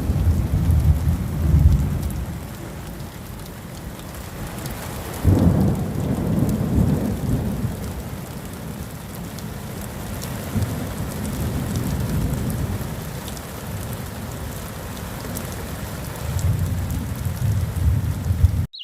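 Thunderstorm: steady heavy rain with rolling thunder, and a sudden loud clap of thunder about five seconds in.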